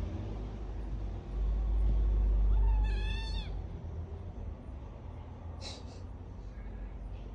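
A cat meows once, a short high-pitched mew lasting under a second, about three seconds in. A low rumble sits under it.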